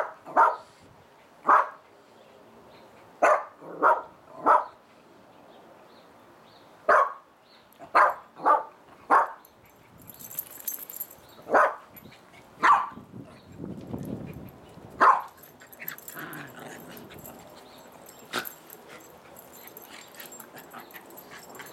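Dogs at play barking in short, sharp single barks, about a dozen over the first fifteen seconds, then fewer and fainter, with one more bark near the end.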